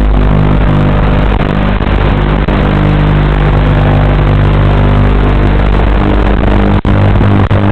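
Loud, steady buzzing hum with hiss on the audio track of the HGLRC Batman 220 quadcopter's FPV video feed, with a brief dropout near the end.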